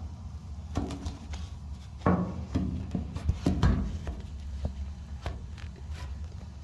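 Scattered handling knocks and clunks, a few sharper knocks about two seconds in and again around three and a half seconds, over a low steady hum.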